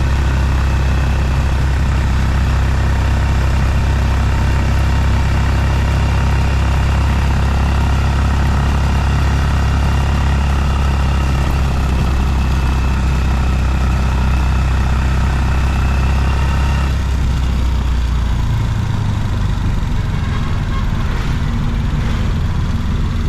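An engine running steadily, its tone shifting and dropping about 17 s in.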